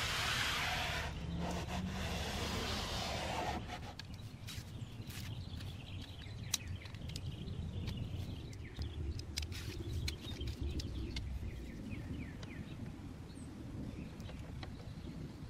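A cloth rubbing over the car's plastic lower door cladding, a hiss for the first few seconds. Then quiet outdoor ambience: a low rumble, a few light clicks and faint bird chirps.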